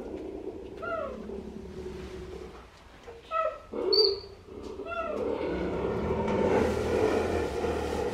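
A cheetah chirps about five times, each call a short, high, bird-like yelp that falls in pitch. Between the chirps it purrs with a steady low rumble.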